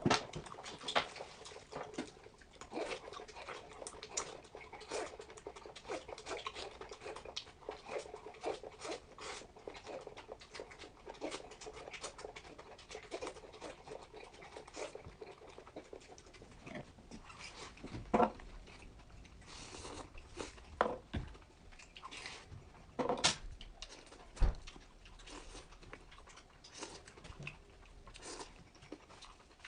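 Close-miked eating: wet chewing and mouth smacking with many small clicks. The clicks thin out about halfway through, leaving a few sharper cracks.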